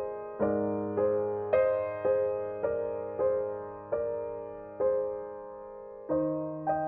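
Background music: slow, gentle piano chords, one struck about every half second to second and left to fade, over a held low bass note.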